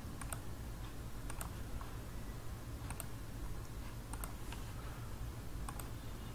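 Computer mouse and keyboard clicks, about five spaced a second or so apart, over a low steady hum.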